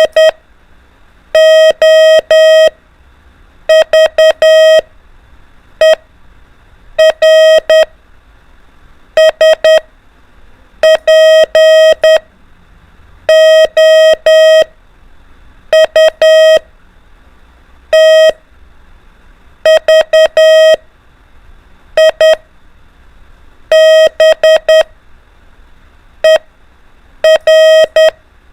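Morse code practice tone keying single letters: a steady beep switched on and off in short and long elements, one letter every second or two with pauses between.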